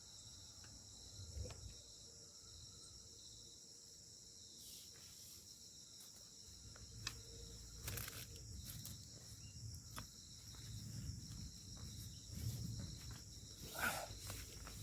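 Insects trilling steadily in a high-pitched chorus, with occasional sharp clicks and soft knocks that come more often in the second half.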